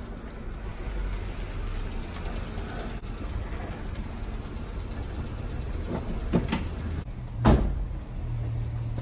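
Daihatsu Hijet kei truck rolling slowly in and stopping, its small engine running with a low, steady hum. Two sharp knocks come near the end, the second louder.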